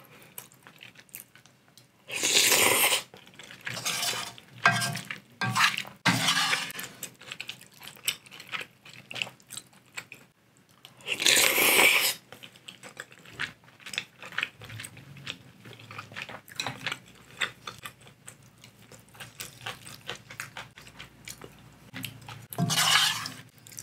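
Eating ramyeon noodles with chopsticks from a metal pot: chopsticks clicking against the pot and chewing, with three loud slurps of noodles, a couple of seconds in, about halfway, and near the end.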